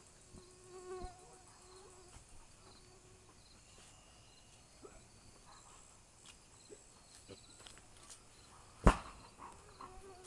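Faint, steady chirping of insects, with a brief pitched voice-like sound about a second in and a single sharp knock near the end.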